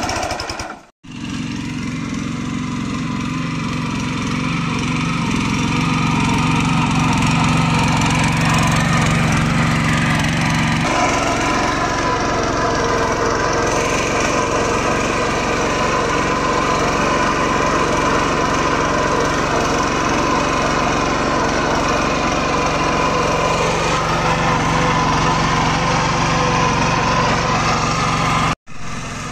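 Petrol power tiller's small air-cooled engine running steadily under load as its rotating tines churn soil. The sound drops out for an instant about a second in and again near the end.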